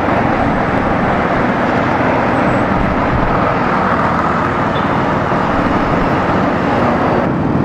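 Steady noise of a Kawasaki Bajaj Avenger 220 motorcycle riding slowly in traffic: its engine running, with road and wind noise on the bike-mounted camera's microphone.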